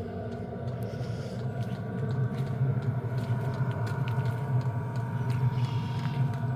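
2 kW diesel air heater running during its warm-up: a steady low combustion rumble and blower hum with a constant whine above it, and faint scattered ticks.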